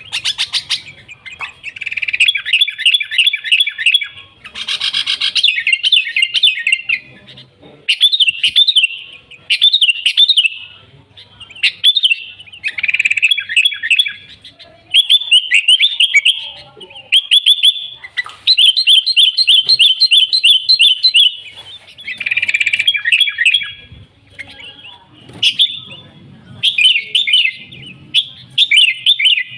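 Sooty-headed bulbul (kutilang) singing vigorously: phrase after phrase of quick, rapidly repeated chattering notes, each a second or two long, with short pauses between.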